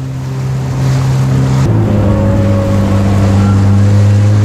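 Jet ski engine running under way, with water spray hissing past the hull. About two seconds in, the engine note shifts abruptly to a different pitch and gets slightly louder.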